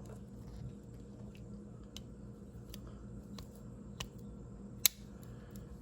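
Faint small metal clicks and scrapes from a fingernail working the corkscrew out of a Swiss-Army-style pocket multi-tool, with one sharp click near the end as the blade snaps open.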